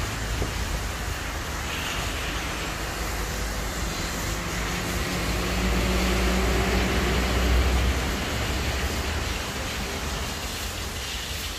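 Steady low mechanical rumble with a hiss over it, swelling a little louder about halfway through and then easing off.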